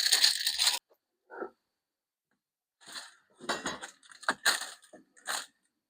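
A snack-chip bag crinkling for under a second, then a run of short, irregular clinks and rattles of something being handled.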